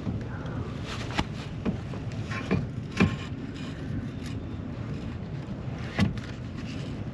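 Scattered knocks and clunks of a trolling motor and its bow mount being shifted and fitted together, the loudest about three and six seconds in, over a steady low hum.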